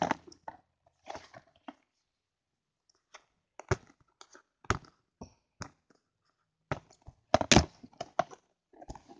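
Packaging being pulled and torn open by hand: a run of sharp, irregular cracks and crinkles. They are loudest a little past two-thirds of the way in.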